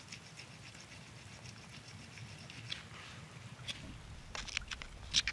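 Flint blade scraping back and forth across a deer antler to score a groove. It makes short, dry, scratchy strokes that come in a cluster in the second half, the loudest just before the end.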